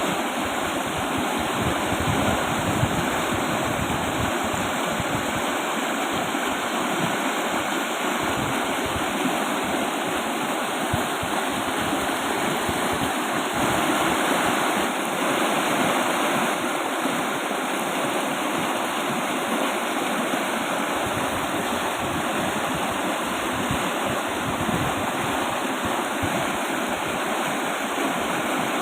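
Fast, strongly flowing river rushing steadily over rocks, a continuous roar of water.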